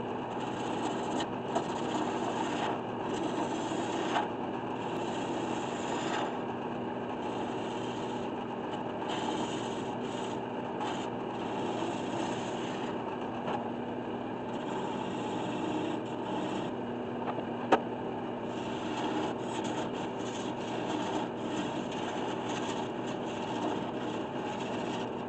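Wood lathe turning a walnut piece while a gouge cuts into its spinning face: a steady scraping hiss of the tool taking shavings, over a steady low hum. One sharp click about two-thirds of the way through.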